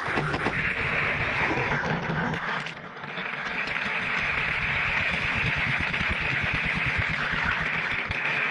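Toy car's plastic wheels rolling fast along plastic track: a steady rattling whir, with a short dip about three seconds in.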